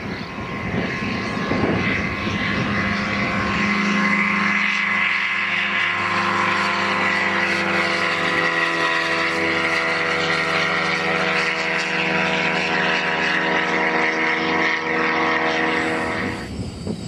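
Electric radio-controlled model aircraft flying close by: its motor and propellers give a steady whine of several tones, which stops abruptly near the end. Wind rumbles on the microphone for the first few seconds.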